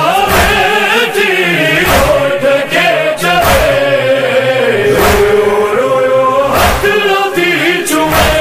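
Sindhi noha chanted in long, gliding held lines, with a backing chorus. It runs over a thump about every second and a half, the beat of matam (chest-beating) that marks the rhythm of a Shia lament.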